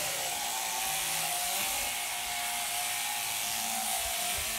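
Two electric sheep-shearing machines running steadily: overhead hanging motors drive the handpieces, whose comb and cutter clip through the fleece with an even buzz and a steady hum.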